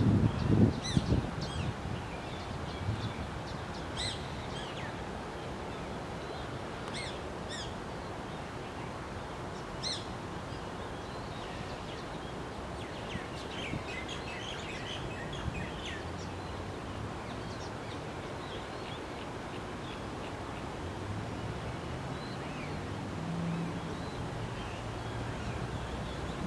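Steady wind noise on the microphone, with a loud low gust about a second in, and scattered short high bird chirps over roughly the first sixteen seconds.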